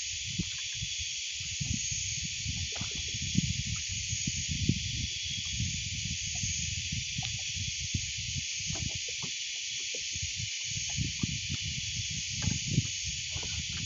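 Steady high-pitched hiss, with irregular low rumbles and short soft knocks on the microphone.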